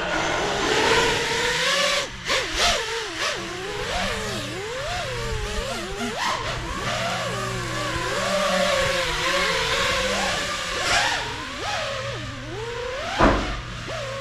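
FPV quadcopter motors whining, their pitch swinging up and down rapidly with throttle, over a steady rush of air. A short sharp thump comes near the end.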